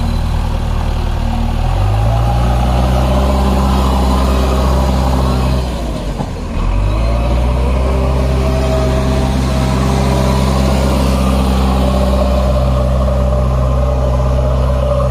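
Heavy diesel engine running under load. Its pitch steps up about two seconds in, dips briefly around six seconds, then picks up again and holds steady.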